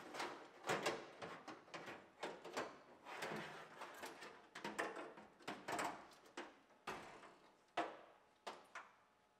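A metal power-window regulator and its cables being worked out of a car door by hand: irregular clicks, knocks and rattles of the regulator against the inner door shell, fewer toward the end.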